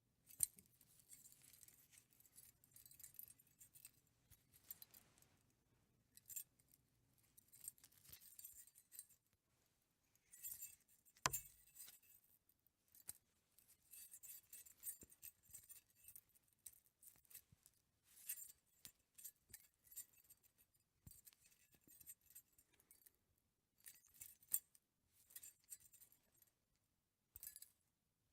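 A necklace jingling in repeated short bursts with pauses between them, bright chinking and clinking, with one sharper clink about eleven seconds in.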